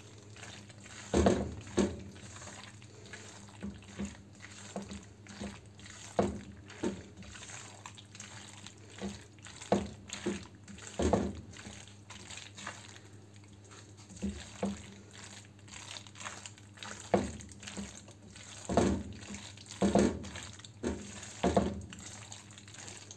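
Spatula stirring and folding elbow macaroni through thick white sauce in a pan: irregular soft scrapes and wet squelches, about one a second, over a steady low hum.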